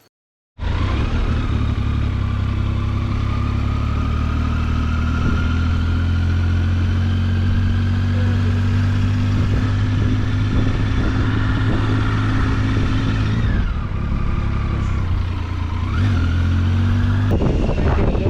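Motorcycle engine running steadily under way, cutting in about half a second in, with a whine that slowly climbs in pitch. In the last few seconds the engine note drops and picks up again twice.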